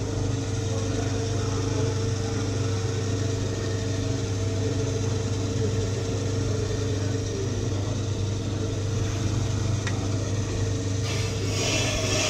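Ammco 4000 brake lathe running with a steady motor hum as it turns a brake rotor. A higher hissing scrape, the tool bit cutting the rotor, comes back in near the end.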